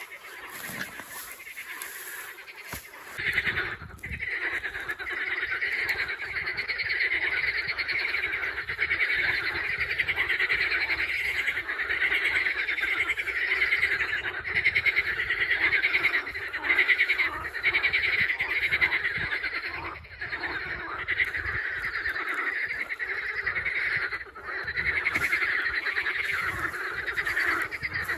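A dense chorus of many frogs calling at once, their overlapping calls merging into a continuous pulsing trill. It swells to full strength about three seconds in.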